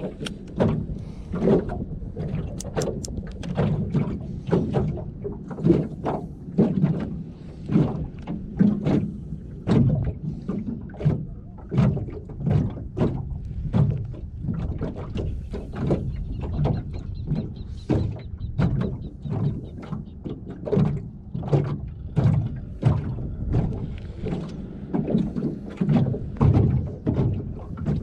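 Small waves slapping against the hull of a small flat-bottomed boat: irregular dull thumps about once or twice a second, over a low wash of water and wind.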